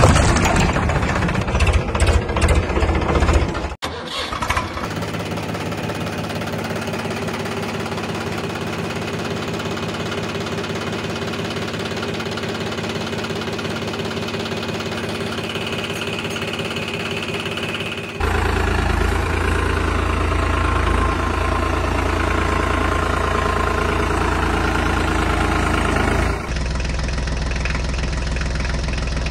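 Water splashing loudly for the first few seconds, then a diesel tractor engine running steadily at idle. The engine sound changes abruptly twice, becoming heavier and deeper for a stretch and then steadier again near the end.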